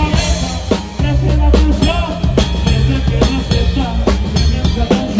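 Live band playing a corrido through an arena PA: a drum kit keeps a steady beat with kick and snare hits under a deep bass line, with guitars and a wavering melody line on top.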